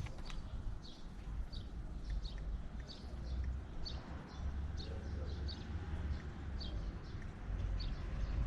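A small bird chirping: short, sharp notes repeated about twice a second over a steady low rumble.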